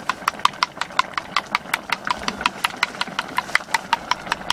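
Wooden chopsticks rapidly beating a raw egg in a small bowl. They click against the bowl's side about six times a second, each tap with a short ring.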